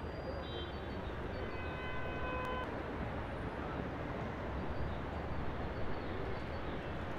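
Steady outdoor background noise, with a horn sounding one steady note for about two seconds, starting about half a second in.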